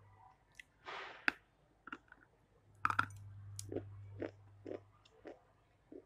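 Close-miked chewing and biting of food: a short hiss about a second in, a few sharp crunches, then steady chewing about twice a second.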